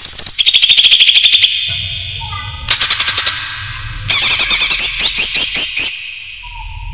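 Greater green leafbird (cucak ijo) song played as a trapping lure: loud bursts of rapid chattering trills and sharp high notes in three phrases with short pauses between, the last ending in a run of separate notes.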